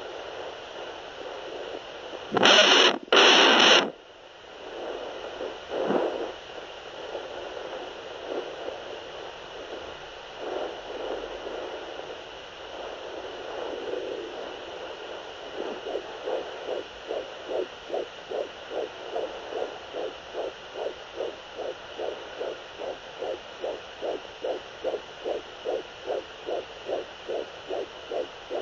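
Ultrasound Doppler heart monitor over a steady hiss: two loud rushing blasts about two seconds in, then uneven whooshing while it searches. About halfway a fetal heartbeat locks in as a fast, regular whooshing pulse of roughly two and a half beats a second.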